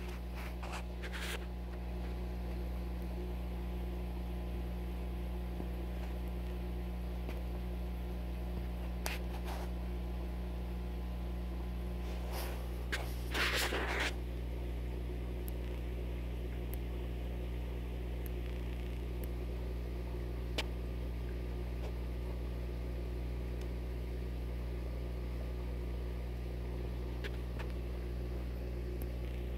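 Steady low electrical hum at an even level, with a few brief scuffing noises about a second in, around nine seconds and, loudest, around thirteen seconds in.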